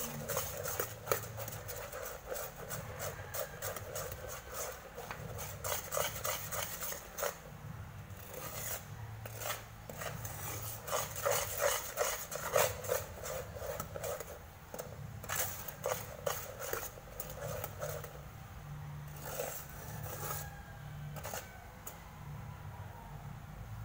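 A metal spoon scraping and clinking against an aluminium pot in quick, irregular strokes while sugar is stirred as it caramelises. The strokes thin out in the last few seconds.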